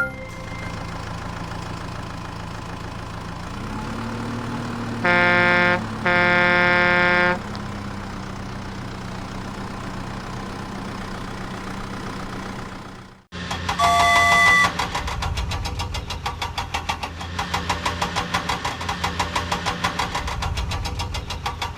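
Cartoon vehicle sound effects: a motor vehicle engine running steadily, with two horn honks, the second longer. After a sudden cut, a short beep and an engine running with a fast, even pulse.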